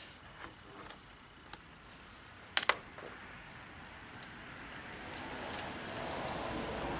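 Small clicks and knocks of chainsaw parts and tools being handled, with a sharp double click about two and a half seconds in, over a faint rushing background that grows louder in the second half.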